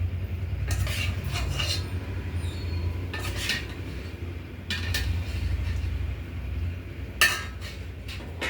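Spoon and dishes clinking a few times as the food is served or handled, the sharpest clink about seven seconds in, over a steady low rumble.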